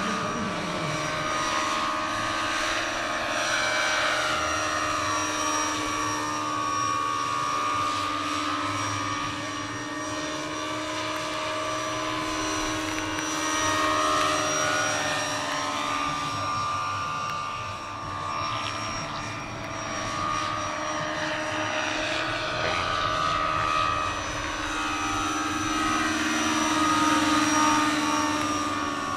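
Large electric-powered scale RC model helicopter, an AgustaWestland EH101, flying by: a steady whine of motor and drive mixed with rotor noise. It swells and fades in loudness, and its pitch bends as it passes.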